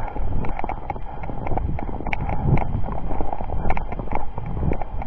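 Footsteps crunching in snow at a walking pace, with a steady low rumble behind them.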